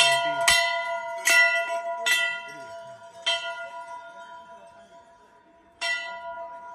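Hanging brass temple bells struck by hand one after another: five strikes in the first three seconds or so and one more near the end, each ringing on and slowly fading.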